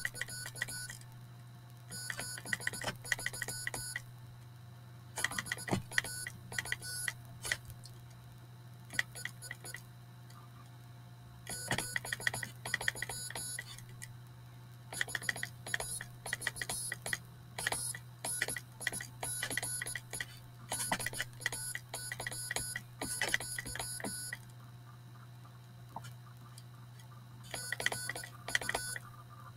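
Homemade relay-based code practice oscillator buzzing on and off as Morse code is sent on a homemade straight key: short and long buzzes in groups, with pauses between characters and words. A steady low hum runs underneath.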